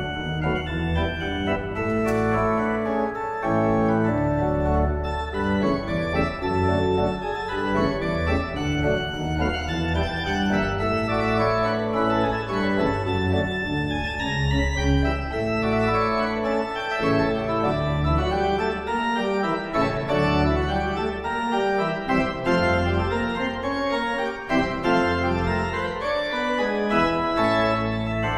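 Church pipe organ playing a many-voiced piece, with notes moving in the upper parts over deep held pedal bass notes.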